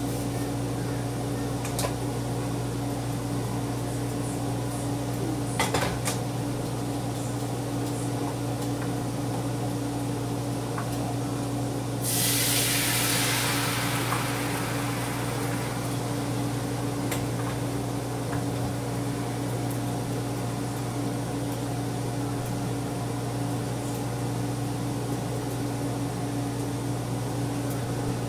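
Pancake batter sizzling as it hits a hot nonstick pan, starting suddenly about twelve seconds in and dying away over about two seconds. A steady hum runs underneath, and a few clicks of utensils against the pan come earlier.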